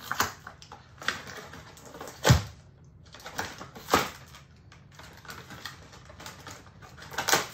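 Cardboard and plastic toy packaging rustling and crinkling as it is handled and pulled open, with several sharp clicks and knocks; the loudest, a knock with a low thump, comes about two seconds in.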